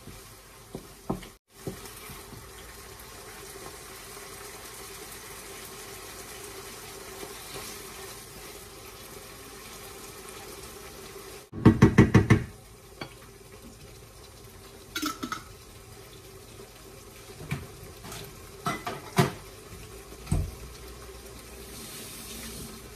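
Minced-meat and tomato sauce sizzling in a frying pan with a steady hiss as it is stirred with a wooden spatula. About halfway through comes a quick run of loud knocks, then scattered clicks and taps.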